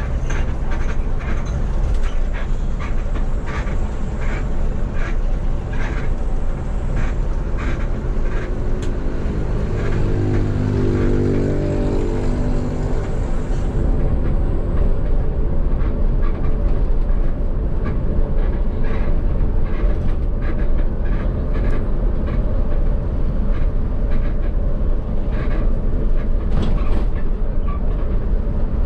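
Bus on the move: steady engine and road rumble with frequent rattles and knocks. Near the middle, a low pitched tone is held for about three seconds.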